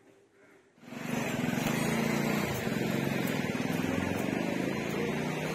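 A motor vehicle engine running steadily, with outdoor street noise, starting about a second in after a moment of near silence.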